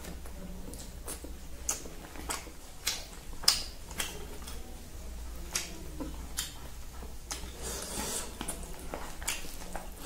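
Close-up eating sounds: irregular wet mouth clicks and smacks from chewing, with fingers squishing and mixing rice on a plastic plate.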